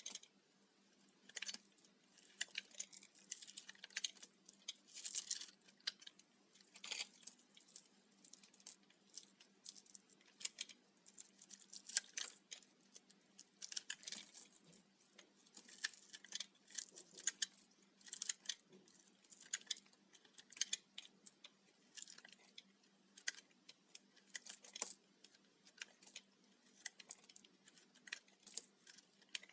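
Brittle, microwave-puffed bar soap being crushed and crumbled by hand: an irregular run of crisp crackles and dry scratchy crunches, several a second, coming in clusters.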